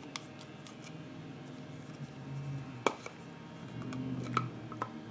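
Quiet handling of a loose-powder compact and makeup brush: a few light clicks and taps of the container, the sharpest about three seconds in and another just past four seconds, with a faint low hum in two short stretches.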